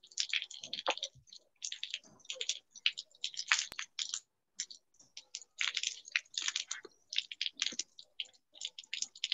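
Computer keyboard typing, rapid irregular key clicks, picked up by an unmuted participant's microphone and heard through a video call.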